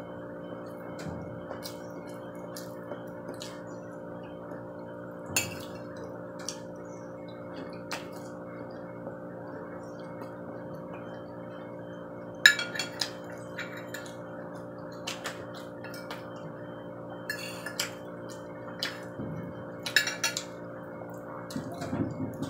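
Fork and spoon clicking and scraping on a ceramic plate, with wet chewing of pork and potato, over a steady low hum. The clicks come in scattered taps, thicker in the second half.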